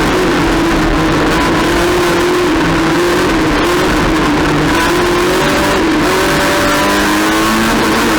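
Race car engine running hard, its pitch rising under acceleration and dropping back several times as the car is driven through the race.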